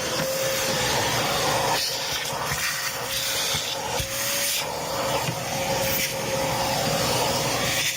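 Shop vac running steadily, its motor holding one steady whine, with a rush of air through the hose that swells and dips as it sucks.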